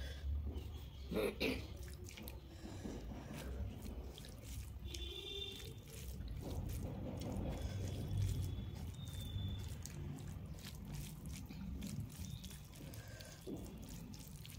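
Dal poured from a steel bowl onto rice, then a bare hand mixing the wet rice and lentils on a metal plate, squishing, with many small clicks of fingers against the plate. A couple of louder knocks come about a second in.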